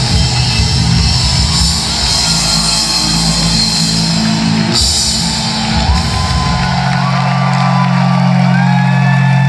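Synth-pop band playing live through a concert hall's PA, with drums driving the music until about five seconds in. After a cymbal crash the drums stop and a low chord is held to the end as the song finishes, while the crowd shouts and whistles over it.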